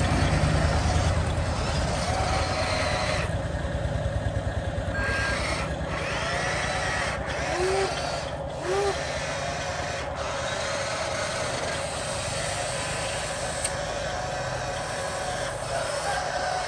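Homemade radio-controlled truck and excavator running: electric motors and gearing with a steady buzzing whine, plus a few short rising-and-falling tones around the middle.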